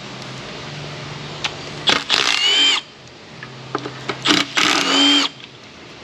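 Cordless Milwaukee Fuel impact gun running twice, each run under a second with a motor whine that rises in pitch, as it spins out the shouldered valve cover perimeter bolts of a Cadillac Northstar V8. Faint clicks of the bolts and socket come between the runs.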